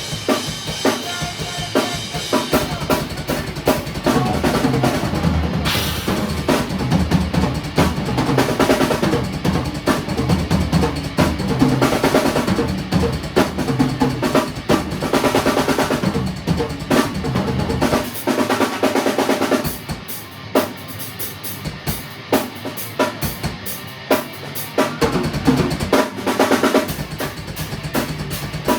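Drum kit played in a jam: a running beat of kick drum, snare and cymbals over sustained pitched notes. The playing thins out and drops in level for several seconds past the middle, then fills back in near the end.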